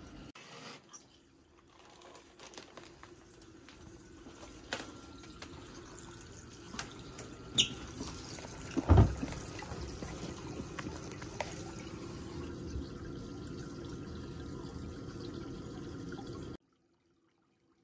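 Water pouring steadily from a plastic pipe into a pond tub, with a few scattered knocks and one louder thump about nine seconds in. All sound cuts off suddenly about a second before the end.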